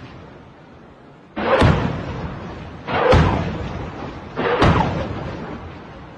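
Three loud blasts from rocket fire, about a second and a half apart, each starting sharply and dying away over about a second.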